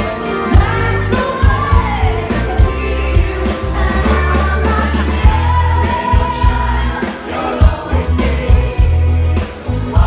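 Live pop band playing with lead vocals over a drum beat, bass guitar and keyboards, heard through the PA from the crowd with heavy bass.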